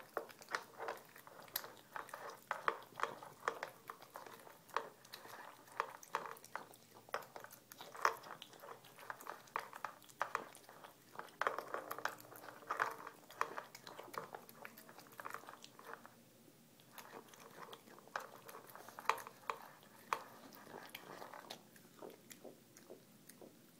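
Domestic cat eating from a bowl close to the microphone: a quick, irregular run of chewing clicks, pausing briefly about sixteen seconds in and again near the end as it lifts its head.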